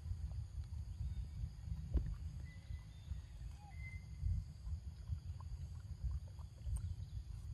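Wind buffeting the microphone, a fluctuating low rumble, with a sharp click about two seconds in and a few faint short high whistles.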